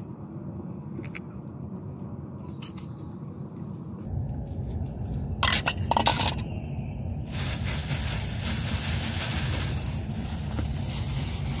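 Eating and dish-handling sounds: a few clinks and scrapes of a spoon and bowls, the loudest cluster about five and a half to six seconds in, over a steady low rumble that gives way to a broad hiss about seven seconds in.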